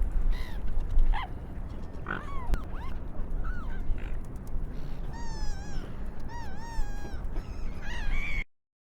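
Seagulls calling: many short, wavering calls one after another over a steady low rumble. It cuts off abruptly near the end.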